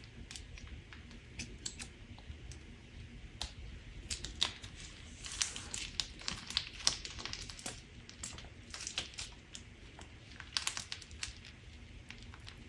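Crunch slime being worked by hand, giving a dense run of small crackles and clicks that thickens in the middle and again near the end.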